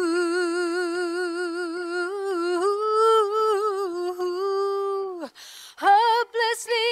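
Isolated a cappella female lead vocal with no backing, holding one long wordless note with a steady vibrato. About five seconds in it slides down and stops. After a short breath, a few short sung notes begin near the end.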